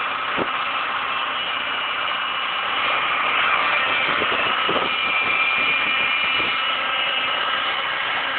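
High-pitched whistle of several steady tones over the running of a Toyota Ipsum's 2AZ-FE four-cylinder engine, with faint clicks. The owner cannot tell whether the whistle comes from the automatic transmission or the engine.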